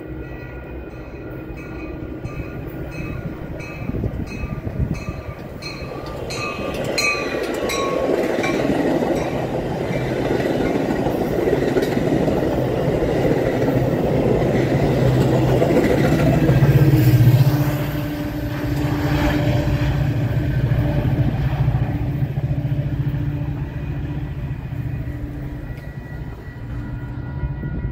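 Metra bilevel commuter train passing close by. Its wheels clatter over the rails, and the diesel locomotive's low rumble is loudest about 17 seconds in. A bell rings about twice a second over the first seven seconds or so.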